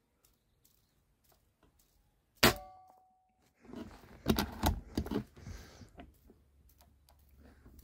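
A single shot from a PCP air rifle (Factor Sniper Long) about two and a half seconds in: one sharp report with a brief metallic ring. About a second later comes a run of clicks and rustling.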